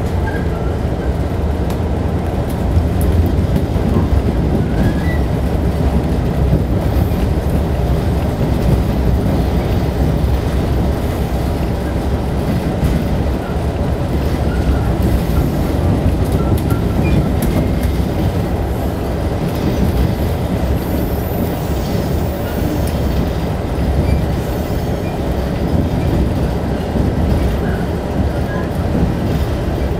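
Passenger train running along the track, a steady low noise of the moving train heard from inside the carriage.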